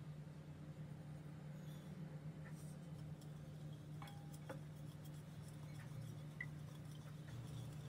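Wooden spoon stirring sugar into water in a glass bowl from about halfway through, giving a few faint taps and clinks against the glass. A steady low hum runs underneath.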